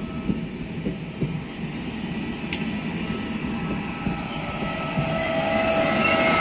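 Passenger train of double-deck coaches rolling slowly past a platform, its wheels rumbling and knocking over the track. Near the end the electric locomotive draws level, and it gets louder with a steady whine.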